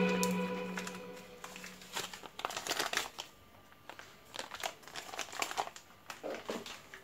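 Background music fading out over the first second, then a plastic packet crinkling in short, irregular bursts.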